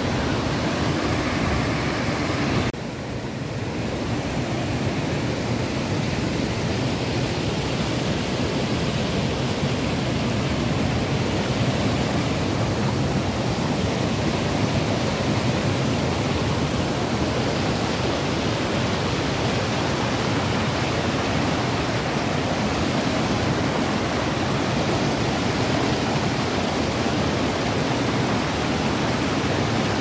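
Fast-flowing river rushing over rocks: a steady, even rush of water, dipping briefly about three seconds in.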